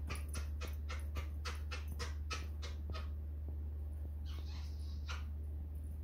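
Pet parrot making a fast run of short, evenly spaced clicking calls, about four a second, that stops about three seconds in. A brief hiss follows, then one more short call.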